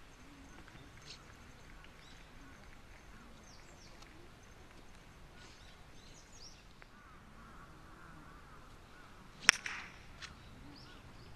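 A park golf club strikes the ball once with a sharp crack near the end, followed by a fainter knock. Faint bird chirps in the background.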